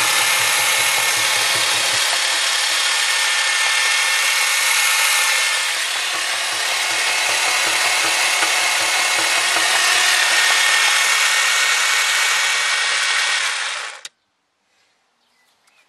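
Car starter motor, fed from a battery by jumper leads, running with a loud, harsh grinding whir for about fourteen seconds, then cutting off abruptly.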